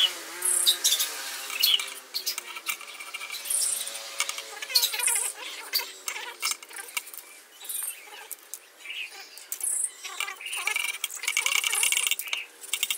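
Thin bamboo canes being handled, knocking and rustling against each other in light irregular clicks; near the end a hand saw starts cutting a thin bamboo cane in short repeated strokes.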